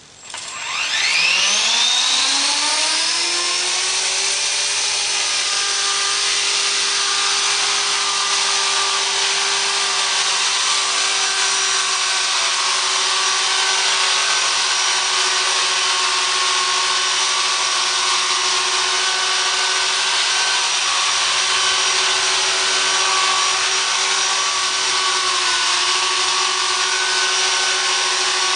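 FireFox 200 electric RC helicopter spooling up, its motor and rotor whine rising steeply in pitch over the first few seconds, then running steadily at flight speed while it hovers.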